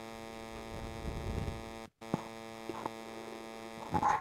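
Steady electrical mains hum, with faint soft handling noise and a few light clicks from batter being folded in a steel bowl. The sound cuts out completely for a moment about two seconds in.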